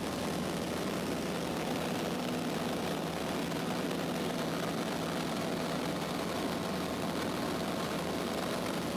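Cessna 152's Lycoming O-235 four-cylinder engine and propeller running steadily in cruise flight, heard from inside the cabin as an even drone.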